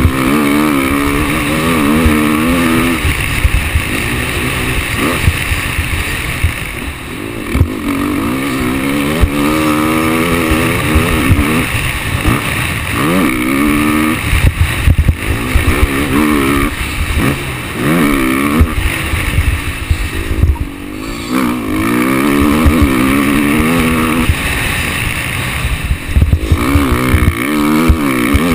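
Motocross bike engine ridden hard around a track, revving up through the gears and dropping back off the throttle again and again, with dense low rumble and knocks throughout.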